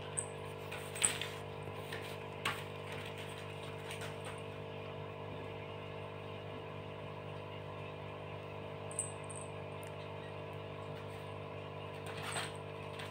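Steady hum of an electric stand fan running, with a few light clicks and taps scattered through.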